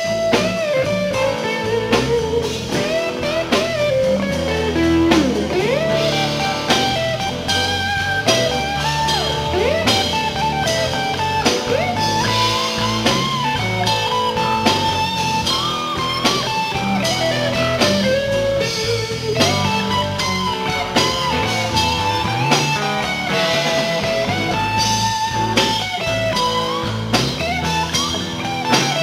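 Blues-rock band playing: a lead electric guitar line with string bends over a drum kit.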